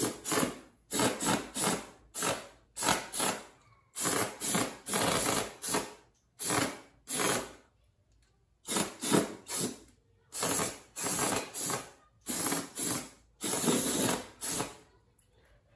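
Aerosol carb cleaner sprayed through its straw in many short spurts, a fresh hiss every half second or so, with a pause of about a second near the middle. It is being used to clean out the injector bores of a motorcycle's intake.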